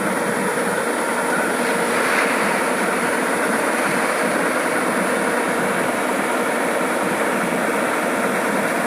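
Yanmar AW70GV combine harvester running steadily, its engine and threshing machinery making a continuous, even mechanical noise.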